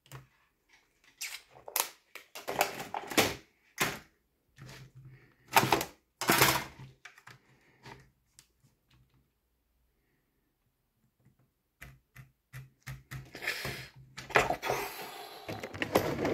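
Handling noise from hard plastic parts being moved on a workbench: a run of clicks and knocks, then a quiet stretch, then more knocks and a scraping rustle near the end.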